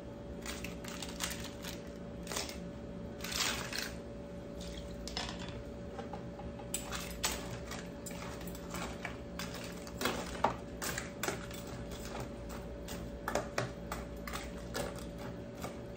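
Cooked crab pieces dropped into a pot of simmering soup, then a metal ladle stirring and knocking against the pot: a scattered run of light clicks and clatters over a steady hum.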